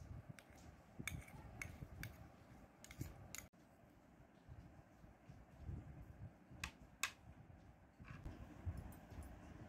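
Faint low room rumble with scattered light clicks and taps of a metal spoon and a plastic measuring spoon against a small ceramic dish: several close together in the first three seconds, two about seven seconds in and one more a second later.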